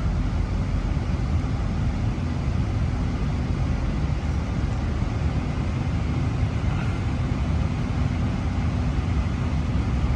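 Steady rumble and hum of train running noise heard from inside a moving BART train car, going slowly.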